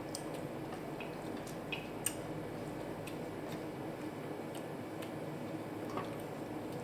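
Eating sounds over a steady background hum: a few soft, scattered clicks and taps. The sharpest comes about two seconds in and another about six seconds in.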